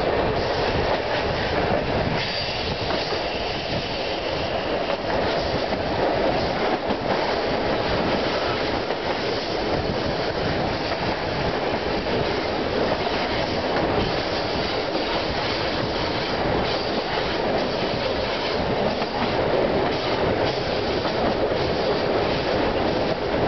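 Moving train running at speed: a steady, loud rumble of steel wheels on the rails, with faint clicks and clatter over the track.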